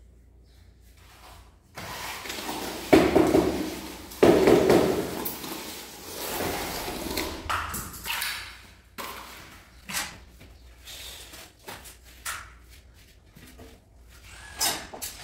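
Floor-tiling work: a scraping, rustling rush loudest a few seconds in, then a series of short sharp knocks and clicks as large porcelain tiles are handled and set on tile adhesive.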